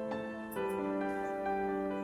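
Background music of sustained keyboard notes, moving to a new chord about half a second in.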